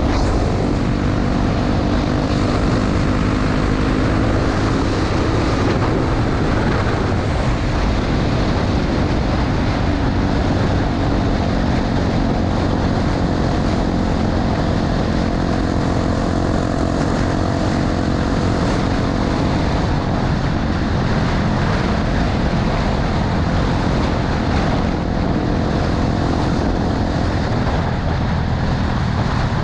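Honda XR250 Tornado's single-cylinder four-stroke engine running steadily while riding, with heavy wind noise on the helmet or bike-mounted camera.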